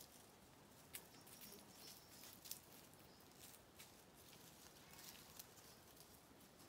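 Near silence with faint, scattered rustles and ticks of small animals moving through long grass and leaf litter.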